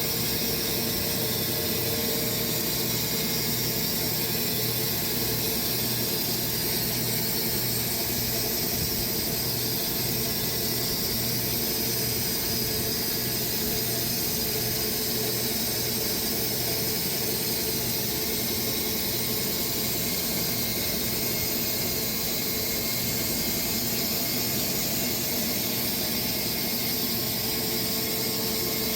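Sawmill running steadily as it cuts through a Bastogne walnut log, a continuous, even mechanical noise with a steady low hum beneath it and no breaks.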